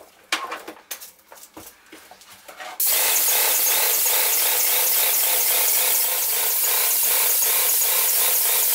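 Wagner Control Pro 250M airless paint sprayer spraying. After a few faint clicks, the loud hiss of the spray starts suddenly about three seconds in and holds steady with a quick, even pulsing from the pump.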